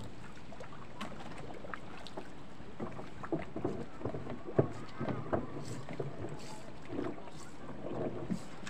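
Scattered knocks, clunks and creaks of a wooden outrigger boat's hull and gear being handled, over a steady hiss of wind and water.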